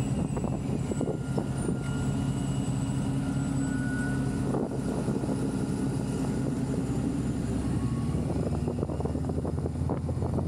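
Honda Rebel 500's parallel-twin engine running at a steady cruise, heard from the rider's seat, holding an even pitch.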